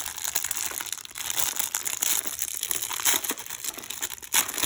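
Plastic packaging bags crinkling and crackling as they are handled and rummaged through, a continuous irregular rustle of crackles.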